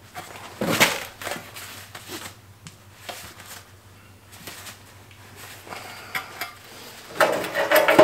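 Sheet-steel patch panel being trimmed with hand snips and handled: a sharp metallic snip or clank about a second in, scattered small metal clicks, and a louder cluster of metal scraping and rattling near the end as the panel is held against the fender.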